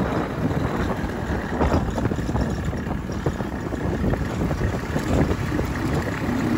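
Motorcycle engine running at steady road speed, with wind buffeting the microphone.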